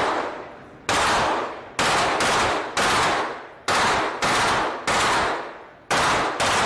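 Rifle fired one shot at a time in a quick, slightly uneven string of about nine shots, roughly one every half second to a second. Each report rings out with a long echo tail.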